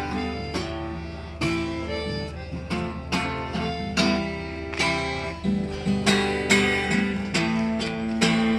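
Acoustic guitar playing an instrumental break between sung verses: plucked notes and chords with sharp attacks about every half second, each left ringing.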